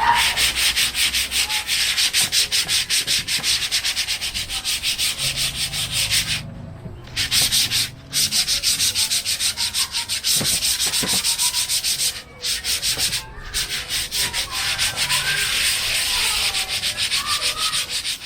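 Rust being scrubbed off a sheet-metal computer case by hand with an abrasive, in rapid back-and-forth strokes that stop briefly a few times.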